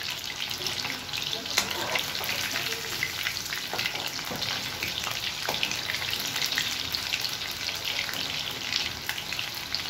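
Marinated chicken 65 pieces deep-frying in hot oil in a kadai: a steady, dense crackling sizzle. A slotted metal spoon stirs the pieces through the oil, adding a few clicks and scrapes.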